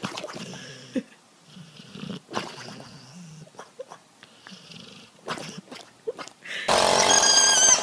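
A dog asleep in bed making soft, irregular low sounds in its sleep, with a few faint clicks. Near the end, a much louder, high, wavering cry from a hyena cub cuts in.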